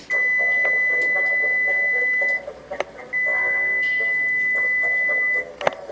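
Electric range's oven timer beeping: two long steady high beeps, each a little over two seconds, with a short gap between, signalling that the set baking time has run out.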